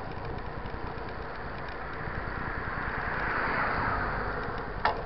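Steady wind and tyre rumble of mountain bikes rolling on wet asphalt, with a motor vehicle swelling past about three to four seconds in. A single sharp click near the end.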